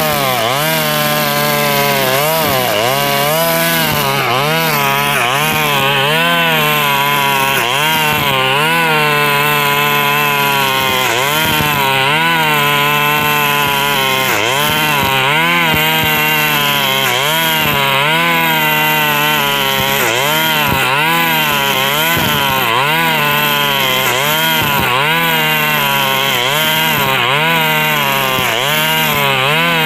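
KNC 4400 brush cutter's two-stroke engine running loud, its speed dipping and recovering about once a second as the nylon line bites into tall cogon grass. The exhaust muffler is rusted through with small holes, which makes it very loud.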